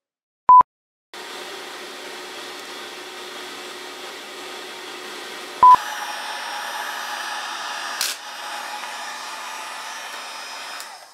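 Heat gun blowing steadily, warming a paper stencil glued to a wooden box blank. Two short, loud electronic beeps, one just before it starts and one about halfway through, and a brief click about eight seconds in.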